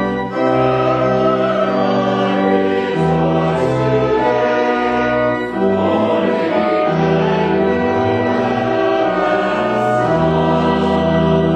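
Church choir singing a slow piece in sustained chords, with steady held low bass notes underneath.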